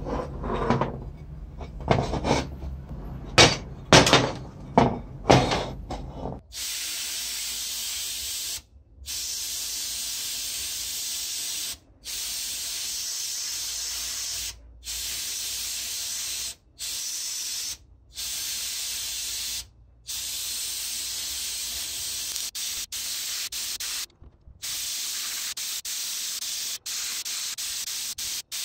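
A run of knocks from the metal tool housing being handled, then a sandblasting gun hissing inside a blast cabinet. The blast comes in long bursts, stopping briefly every few seconds as the trigger is let go and squeezed again.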